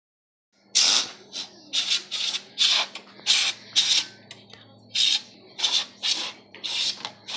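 Can of compressed air fired in about a dozen short hissing blasts in quick succession, blowing dust out of an open desktop computer case.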